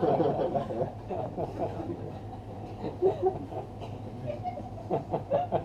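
Small audience laughing and chuckling at a punchline. The laughter tapers to scattered chuckles, with short fresh bursts about three seconds in and near the end.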